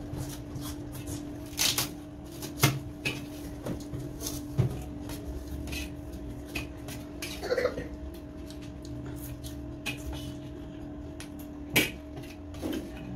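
Eating sounds: a metal spoon clinking and scraping on a steel plate, mixed with crunchy chewing, in scattered sharp clicks.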